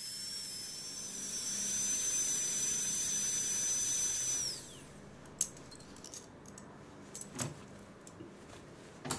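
Dentist's high-speed drill whining at a steady high pitch, then winding down and stopping about four and a half seconds in. A few light clicks follow, like instruments being handled.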